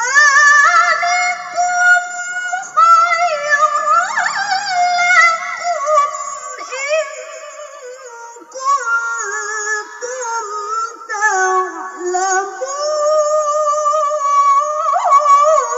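A woman reciting the Quran in the melodic contest style (tilawah): one voice that begins suddenly and holds long, ornamented, wavering notes. The melody sinks lower through the middle, lifts briefly, and falls again near the end.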